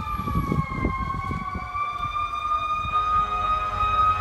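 Emergency vehicle siren sounding one steady high tone that sags a little in pitch about a second in and climbs back. A low engine rumble joins in near the end.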